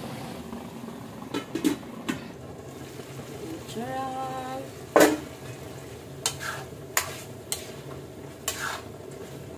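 A metal ladle stirring chicken and tomatoes in a metal wok, scraping and clanking against the pan over a steady sizzle from the simmering dish. The loudest clank comes about five seconds in.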